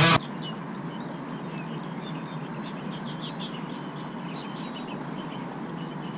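Small birds chirping in quick, short, high calls over the steady rush of a fast-flowing river.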